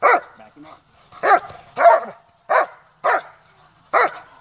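German Shepherd barking up at a helper's bite sleeve during protection work: six loud, sharp barks about half a second to a second apart.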